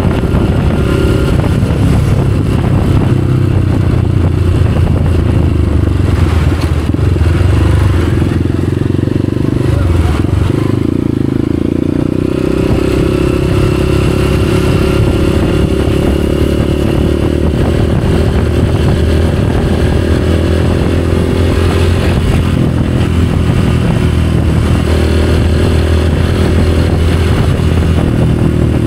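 Motorcycle engine running steadily, with a brief change in its pitch around ten to twelve seconds in.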